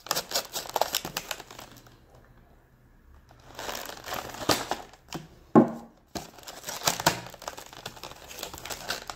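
Pocket knife slitting the seal on a small cardboard box, a scraping, crackling sound, with a short pause about two seconds in. The cardboard lid flap is then worked open, with a sharp snap about halfway through.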